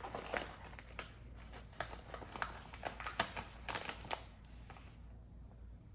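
Irregular sharp crackles and clicks from snacks and their packaging being handled, thinning out after about four seconds.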